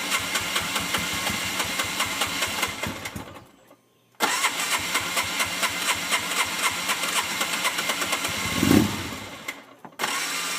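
Polaris RZR engine being cranked on its electric starter without catching: a few seconds of even cranking, a short pause, then a second longer try. Near the end of the second try there is a brief loud low burst as it almost fires, then it dies away and cranking starts again near the end. The sound of a hard-starting engine.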